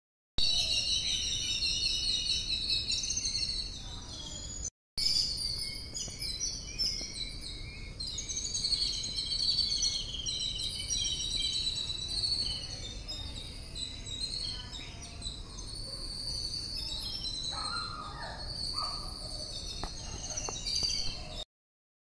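A flock of mynas chattering, many overlapping high calls at once over a steady low background noise. The sound drops out for a moment about five seconds in and stops abruptly near the end.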